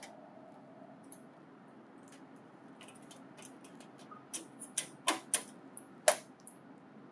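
Light clicks and taps of a metal hard-disk bracket being handled and fitted against a printer's controller board. The clicks are scattered, with the sharpest few in the second half, over a faint steady background hum.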